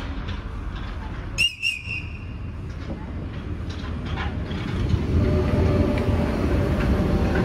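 Renfe Class 447 electric multiple unit pulling into the platform: a brief high-pitched horn toot about a second and a half in, then a rumble of wheels and a motor whine that grow louder as the train runs past close by.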